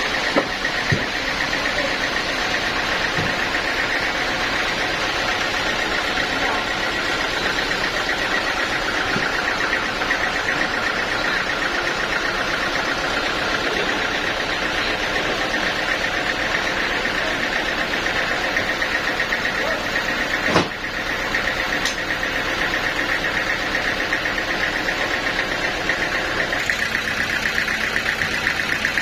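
Sawmill machinery running steadily as a band saw saws a teak log, a continuous mechanical drone with a fast buzzing edge. A single sharp knock comes about twenty seconds in.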